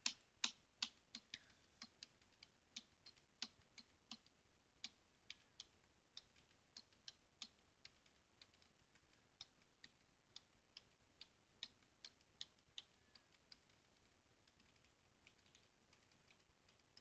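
Computer keyboard keys tapped one at a time, about three sharp clicks a second, with the presses thinning out in the last few seconds. The presses step back through the shell's command history.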